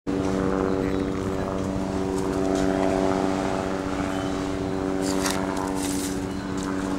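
A steady motor hum that holds one pitch throughout, with a few brief clicks and rustles about five seconds in.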